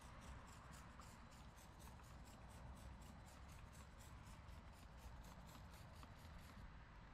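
Plastic trigger spray bottle pumped rapidly, about four short squirts a second, misting a headlight lens; the faint squirting stops shortly before the end.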